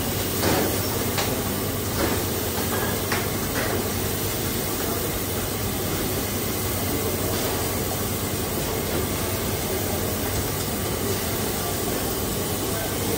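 Rava dosa batter sizzling on a large hot flat griddle as it is splashed on by hand, with the steady rush of a kitchen exhaust hood underneath.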